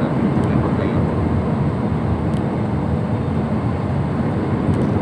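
Steady cabin noise of an Airbus A320 on final approach: its jet engines and the airflow past the fuselage, an even low-pitched rush with no change in level.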